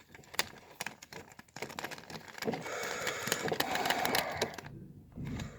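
Handling of a toy monster truck and its packaging: a run of rapid small clicks, then a few seconds of denser plastic-and-cardboard rustling, with a brief low bump near the end.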